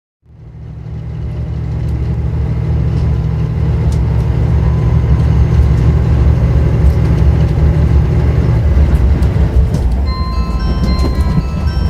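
Cabin noise of a JR Shikoku N2000-series diesel tilting train under way: a steady low rumble of engines and running gear, fading in at the start. About ten seconds in, the JR Shikoku onboard chime begins, a few bell-like notes over the rumble.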